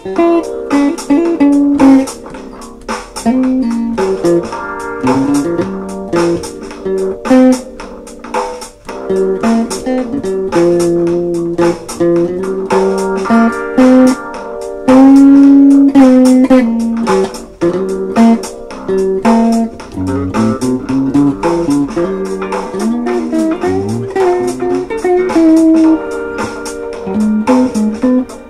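Guitar instrumental music with many quick plucked notes.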